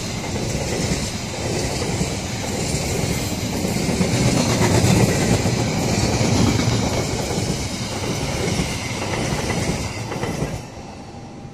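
Argo Semeru express passenger train passing at high speed, its coaches' wheels running loud and steady over the rails. The sound drops off sharply about ten and a half seconds in as the last coach goes by.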